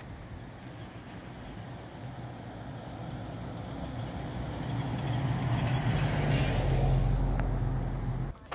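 A road vehicle approaching on the highway, its engine and tyre noise growing steadily louder over several seconds. It is loudest about seven seconds in, then cuts off suddenly.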